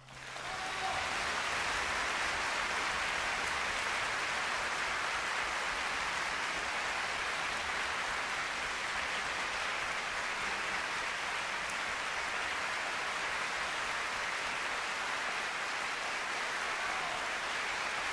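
Audience applauding. The clapping swells within the first second and then holds steady and dense.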